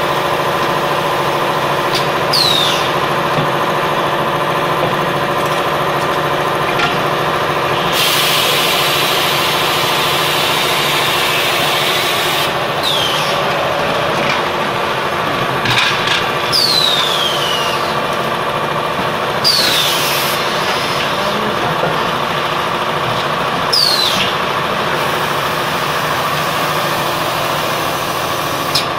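Terrazzo tile machine running: a steady hum from the mixer and press motors. About six short squeals fall in pitch, a few seconds apart, and a hiss lasts about four seconds near the middle.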